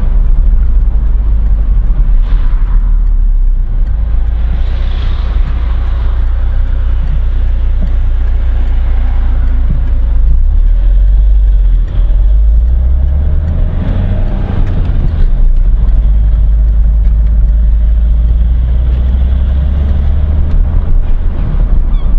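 Car engine and road noise heard from inside the cabin while driving: a steady low rumble that shifts about halfway through, around a roundabout, then settles again.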